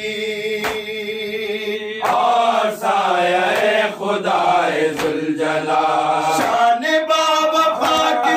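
Men reciting a nauha, a Shia mourning lament, in unaccompanied chant. A lead voice holds long notes at first, and other voices join more fully about two seconds in. Sharp slaps, typical of hands beating the chest in matam, come every second or so.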